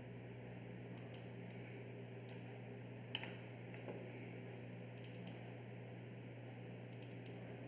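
Faint, scattered clicks of a computer mouse and keyboard over a steady low hum, with one slightly louder click about three seconds in and a quick cluster of clicks near the end.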